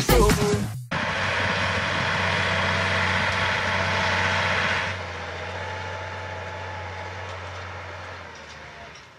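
Dance music cuts off about a second in, leaving a Massey Ferguson tractor's diesel engine running steadily under load as it pulls a seedbed cultivator through dry tilled soil. The sound drops in level about halfway through and fades near the end.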